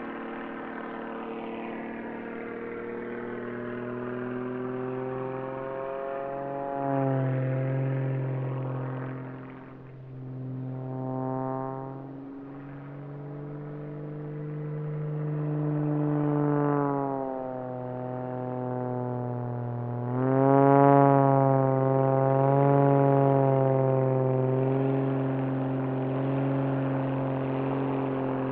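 Pitts S-2S aerobatic biplane's piston engine and propeller running through a display, its pitch swinging up and down as it passes and changes power, loudest about 21 seconds in. Background music plays underneath.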